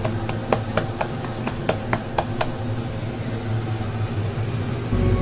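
Bare hands patting jowar (sorghum) roti dough flat on a floured wooden board: quick soft pats, about four a second, stopping about two and a half seconds in. A steady low hum runs underneath and grows louder near the end.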